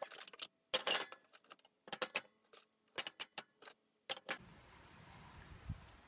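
Short pieces of softwood timber knocking and clattering as they are handled and set down on a table saw's metal top: a string of sharp knocks, some in quick clusters. After about four seconds they stop and only a faint steady background hiss remains.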